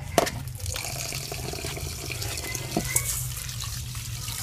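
Tap water running into an aluminium bowl while a hand swishes and rinses the rice grains in it, with a couple of sharp clicks.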